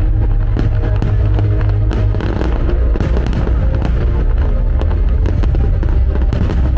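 Fireworks crackling and popping in quick, irregular succession over loud music with a heavy, steady bass.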